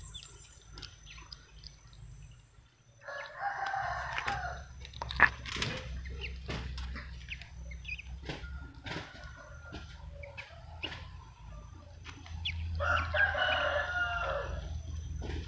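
A rooster crows twice, about three seconds in and again near the end, over small crackles and clicks of duck eggshell being picked apart by hand.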